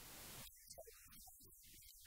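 Near silence: faint room tone with a low hiss.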